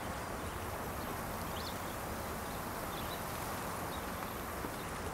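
Steady outdoor background noise of open countryside, with a few faint high chirps of birds or insects.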